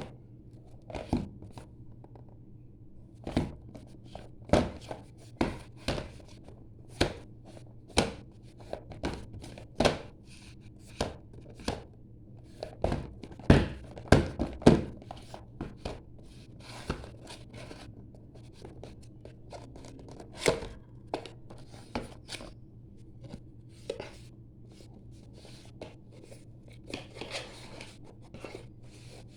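Irregular clicks, taps and knocks of a phone's box and packaging being handled and opened, with a brief rustle of packaging near the end, over a steady low hum.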